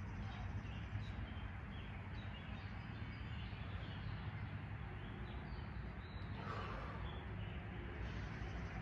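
Quiet, steady background hum and room noise with a few faint high chirps.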